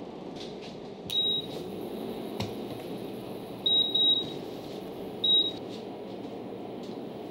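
Induction cooktop's control panel beeping as its buttons are pressed to set the heat: four short high beeps, one about a second in, two in quick succession near the middle and one more a second later, over steady room noise.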